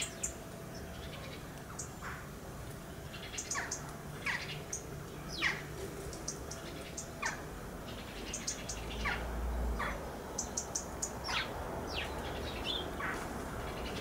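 House sparrows chirping: short falling chirps, roughly one or two a second, with quick runs of high ticks in between.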